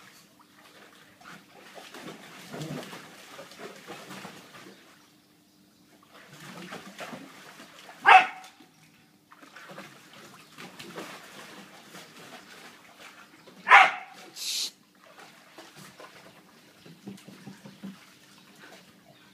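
Two dogs play-fighting in a shallow kiddie pool: scuffling and splashing, with two sharp barks, one about eight seconds in and one near fourteen seconds, the second followed by a brief splash.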